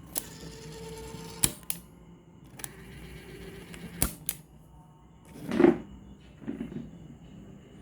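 Sharp mechanical clicks, several in close pairs, over soft rustling handling noise, with a louder scraping rustle about five and a half seconds in.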